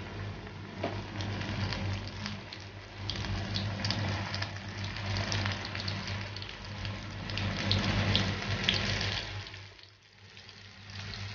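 Batter-coated prawns deep-frying in hot oil: a steady sizzle with a constant crackle, easing off about ten seconds in.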